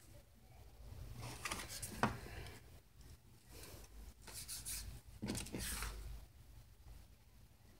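Sheets of leaf-printed paper rustling and sliding as pages are turned and moved by hand, in a few short bursts, with a small tap about two seconds in.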